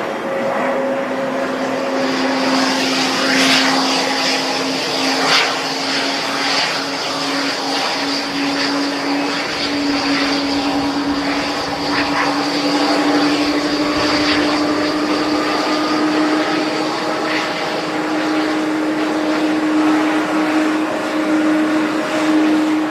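Jet airliner engines running with a steady whine whose pitch rises slowly, over a constant high hiss.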